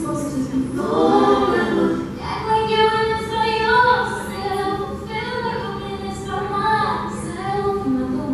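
Music: layered female voices singing in harmony, holding long notes and gliding between them.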